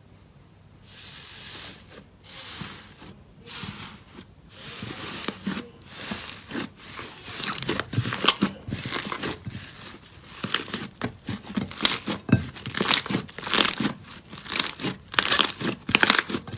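Slime being squeezed and pressed by hand, giving repeated crackling, crunching bursts. They come slowly at first, then quicker and louder about halfway through.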